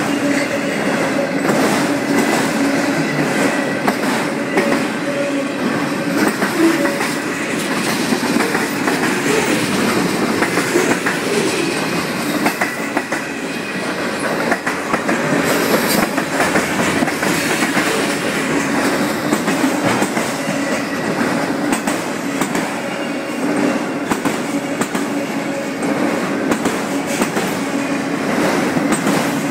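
CN freight train cars rolling past: a steady rumble of steel wheels on rail with frequent small clicks over the rail joints and a faint, steady whine.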